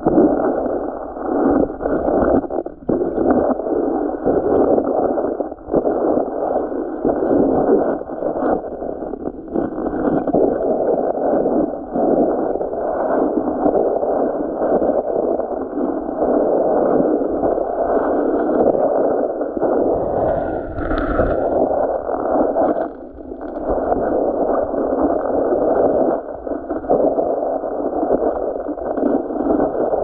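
Muffled sloshing and gurgling of shallow sea water, heard through a camera held under water over a pebble bottom; a steady dull rushing with the higher sounds cut away.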